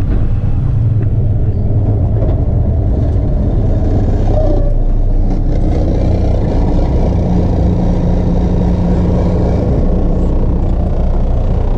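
Heavy truck driving at a steady speed: a continuous low engine hum and road rumble, with no gear changes or pauses.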